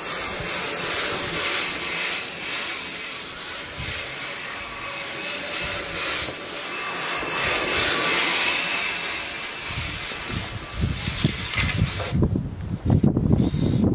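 Radio-controlled snowcat driven by two 2838 2800KV brushless electric motors, running with a high whine and hiss. The whine and hiss stop abruptly about twelve seconds in, leaving low rumbling wind noise on the microphone.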